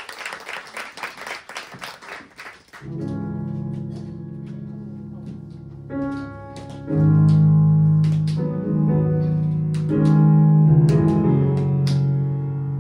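Audience applause dying away, then music starts about three seconds in, with long held notes and a few sharp hits.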